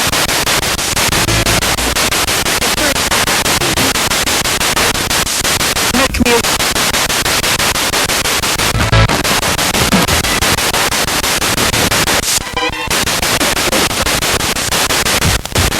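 Spirit box radio sweeping rapidly through stations: loud steady static chopped into fast, even pulses, with brief fragments of broadcast voices and music.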